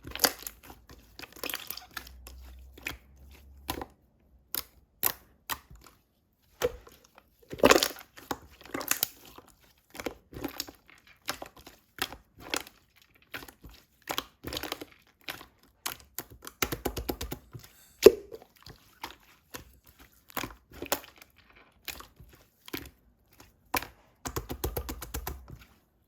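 Slime being squished and pressed by hand, giving irregular sharp clicks and crackling pops, with a louder cluster of pops about a third of the way in.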